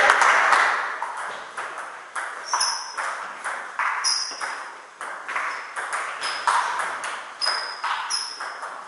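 Table tennis rally: the ball clicks sharply off the bats and the table in a quick, even back-and-forth, about two to three hits a second, each with a short echo.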